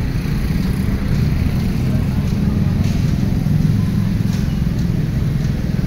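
Steady low rumble of a KfW i9000 electric multiple unit running away along the track, with a few faint clicks.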